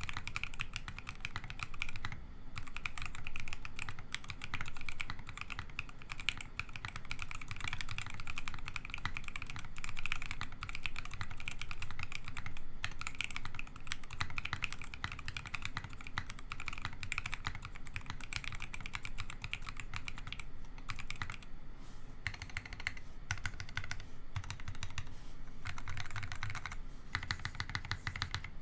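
Steady, continuous typing on a Think6.5 V2 custom mechanical keyboard fitted with FFFF linear switches. Its gasket-mounted FR4 plate, plate foam and case dampener give it a muted sound with a soft bottom-out.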